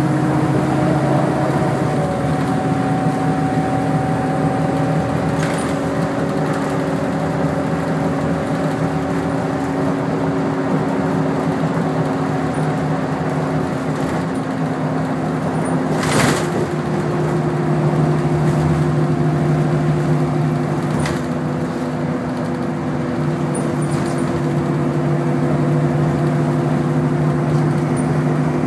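Interior drone of a NABI 40-LFW bus's Cummins ISL-G natural-gas engine and Allison B400R automatic transmission under way, a steady hum whose pitch shifts a few times. There is a single sharp knock about halfway through, with a few lighter ticks from the cabin.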